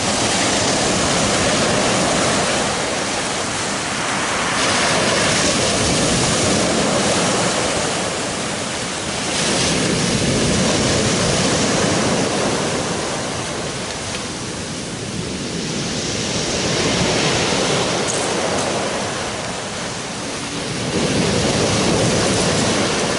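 Rough surf breaking close in on the beach, each wave rushing in and washing back, so the sound swells and eases about every five seconds.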